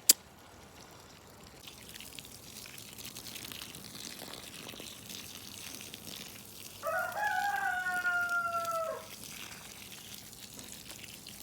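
A rooster crowing once, one drawn-out call of about two seconds starting about seven seconds in, that rises at the start and then sinks slowly, over a faint steady hiss.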